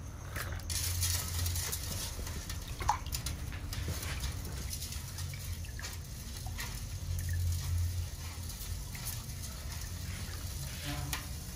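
A hand swishing and stirring water in a large aluminium pot, mixing salt and lime pieces into it, with small splashes throughout.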